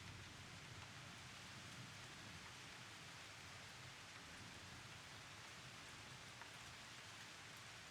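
Steady rain falling, a faint, even hiss of rain on surfaces.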